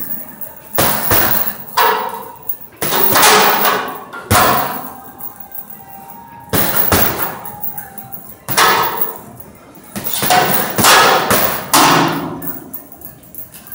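Gloved punches landing on a chain-hung heavy bag in irregular flurries of one to several blows with short pauses between, each hit followed by the bag's chain jingling.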